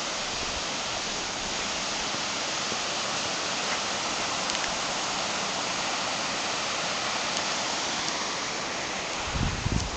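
Small mountain waterfall and stream rushing over rocks: a steady hiss of falling water. A brief low rumble comes near the end.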